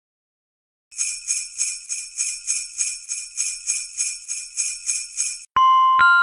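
Sleigh bells shaken in a steady rhythm, about three shakes a second, starting about a second in and stopping abruptly near the end, where ringing glockenspiel-like chime notes begin.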